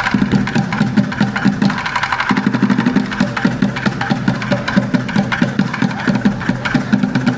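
Street drummers playing fast, dense rhythms on upturned plastic buckets, with a brief break about two seconds in.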